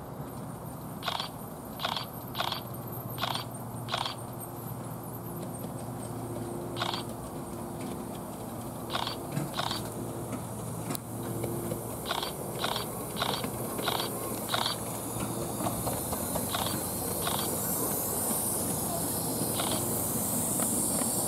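Miniature live-steam locomotive running towards and past with its train: a hiss of steam and running noise builds over the last few seconds as it comes close. Short, sharp sounds come at uneven intervals throughout.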